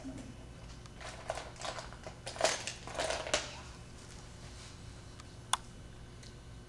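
A quick run of light clicks and taps over a couple of seconds, then a single sharp click, over a steady low room hum.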